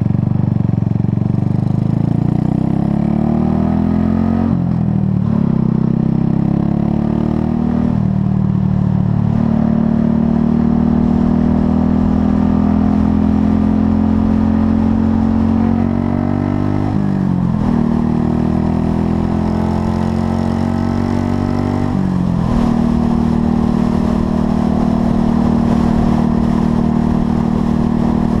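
Buell Blast motorcycle's single-cylinder engine running on the road, freshly fitted with a new carburetor jet kit. The engine speed rises and drops sharply twice in the first several seconds as it shifts up through the gears, then holds steady at cruising speed, with two more brief dips and recoveries in engine speed later on.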